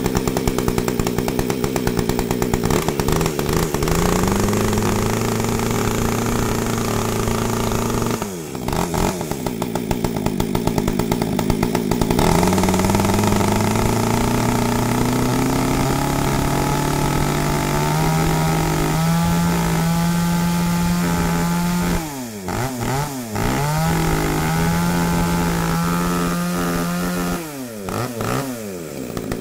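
Small Echo top-handle chainsaw's two-stroke engine running on a test start, unloaded. It revs high at first, settles to a lower steady speed, then rises again slowly, with a few sudden dips in speed that recover within a second or so.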